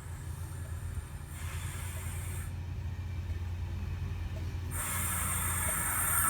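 Train at a station: a steady low rumble, with bursts of hissing about a second in and again, louder, near the end.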